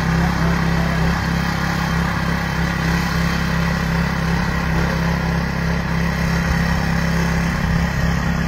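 Walk-behind garden tiller's small engine running steadily while tilling soil.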